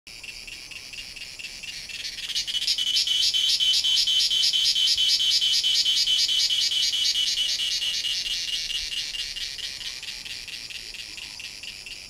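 Cicadas singing: a loud, high, rapidly pulsing buzz that swells about two seconds in, holds, then slowly fades over the last few seconds.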